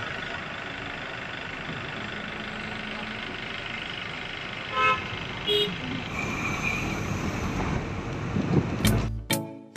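Steady engine and road noise of a moving bus heard from inside, with two short vehicle-horn toots about five seconds in. Music comes in near the end.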